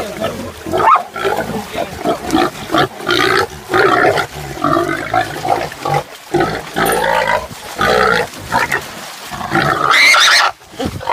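A sow squealing again and again in loud cries as catch dogs hold her.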